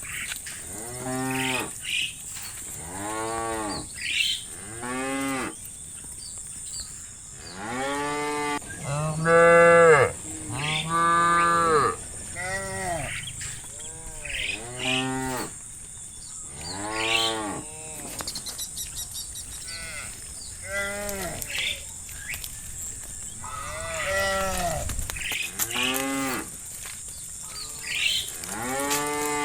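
Cattle mooing again and again: many short calls, each rising then falling in pitch, with the loudest two near the middle.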